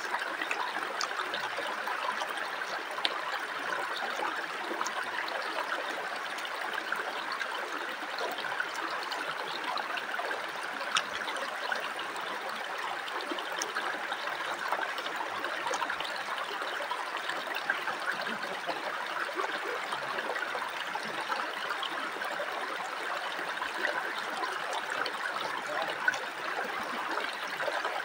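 Shallow stream running over rocks, a steady rushing and trickling, with a few small clicks scattered through it.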